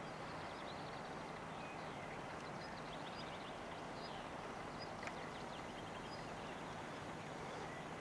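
Faint outdoor ambience: a steady hiss with short, high chirping trills every couple of seconds.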